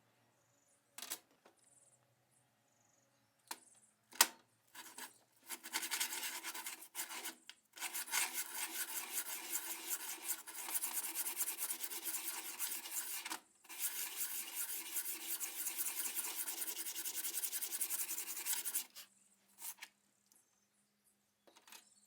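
Knife steel being worked by hand with an abrasive: fast rasping strokes in three runs, the longest two split by a brief pause about thirteen seconds in, after a few light clicks.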